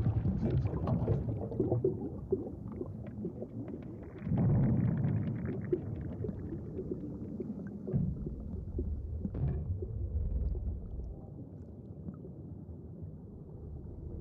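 Muffled underwater rumbling with crackling bubbles as a sea mine on its anchor sinks through the water. A heavy surge comes about four seconds in and a dull thud about eight seconds in as it settles on the seabed, then a lower, quieter rumble.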